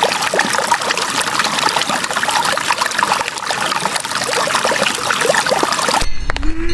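Water running and trickling, with many small bubbly splashes; it cuts off abruptly about six seconds in. A cow moos briefly near the end.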